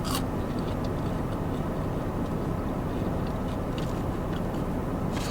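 Steady low background hum with faint, soft clicks of chewing scattered through it.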